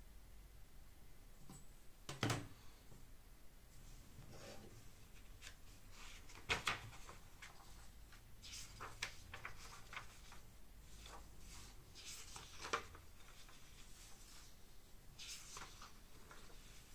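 Sheets of printer paper rustling and sliding on a cutting mat as they are handled, with a few sharp knocks, the loudest about two seconds in and again about six and a half seconds in.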